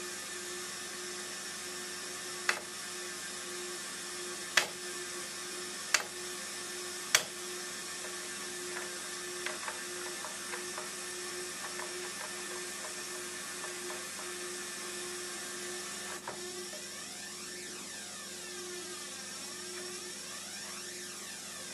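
Switches on a Korg G3 guitar multi-effects pedal clicking as they are pressed: four sharp clicks about a second or two apart, then a run of lighter ticks and one more click later. A steady hiss and hum run underneath.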